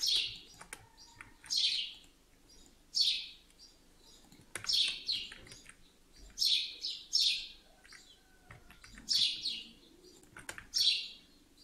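A small bird chirping repeatedly: short, high, falling chirps about every second or so, some in quick pairs.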